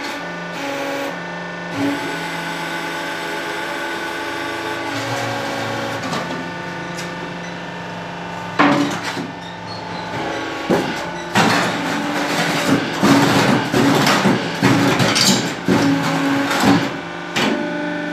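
Hydraulic concrete block press running with a steady hum from its electric motor and pump. About halfway there is a loud metallic knock, then several seconds of rattling and clattering from the steel mould and press frame as the machine works a load of concrete mix.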